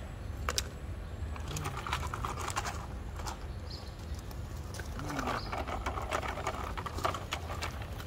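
Loose gravel crunching and rattling with scattered clicks of stones, as plastic toy trucks are moved over it and a plastic toy shovel scrapes and scoops into it; the scraping is busiest in two stretches, about a second in and again past the middle.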